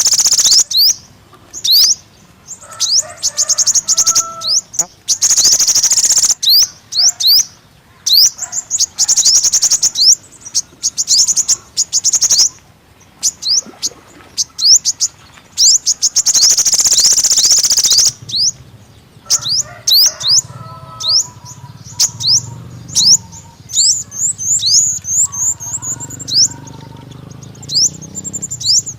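Sunbird song: rapid, high trills alternating with strings of short, down-slurred chips, with longer unbroken trills near the start, about six seconds in and around sixteen to eighteen seconds. A faint low hum runs under the second half.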